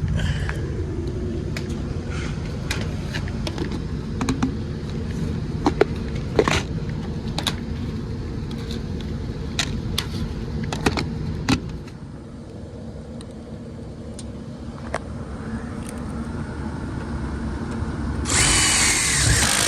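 Steady machinery hum from a rooftop HVAC exhaust or make-up air unit, with a dozen or so sharp metal clicks and knocks of hands and tools working on the unit. The hum drops in level about twelve seconds in, and a loud rushing noise comes near the end.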